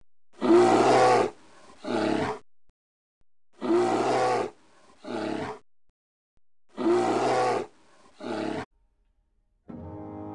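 Lion roar sound effect in the MGM logo style, played three times alike, each a long roar followed by a shorter one. Near the end a brass fanfare begins.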